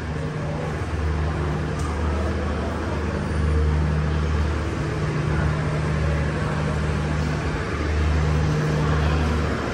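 Motor vehicle engine hum: a low drone that swells and drops back several times over a steady background of noise.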